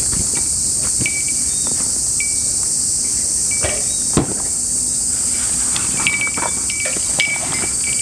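Cicadas singing in a steady, high, dense chorus, with footsteps through leaf litter and a thump about four seconds in. Short high peeps repeat several times over it.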